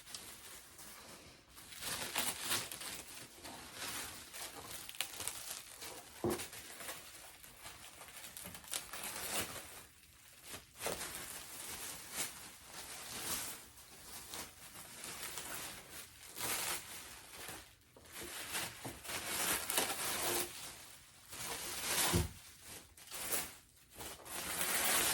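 Saran wrap being pulled, torn and crumpled off an animatronic prop's tail, in irregular crinkling and tearing bursts.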